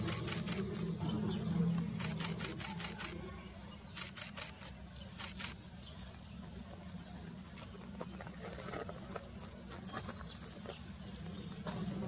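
Camera shutter firing in rapid bursts: several runs of quick clicks in the first five seconds or so, over a steady low hum.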